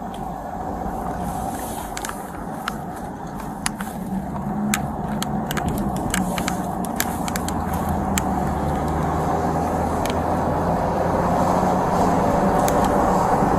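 A motor vehicle's steady rumble, growing gradually louder, with scattered sharp clicks throughout.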